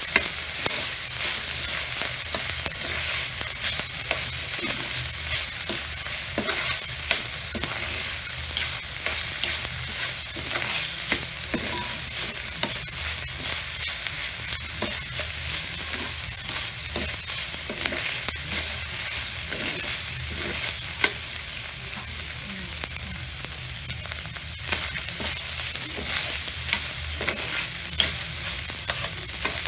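Ground beef sizzling as it browns in a wok, stirred with a large metal spoon that clicks and scrapes against the pan many times.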